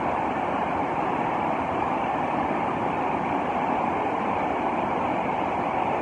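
Muddy floodwater of a river swollen by heavy rain upstream, rushing through churning rapids: a steady, unbroken rushing noise.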